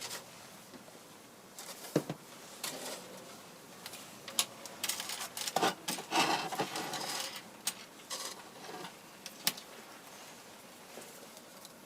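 Plastic parts of a Vollmer model building kit being handled on a work surface: a few sharp clicks and taps, with a stretch of rustling and scraping in the middle.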